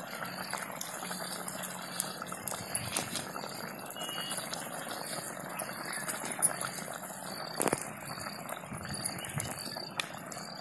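Brinjal masala curry simmering in a pot over a wood-fired chulha: a steady bubbling hiss with small pops and ticks throughout, and a few sharper clicks in the middle.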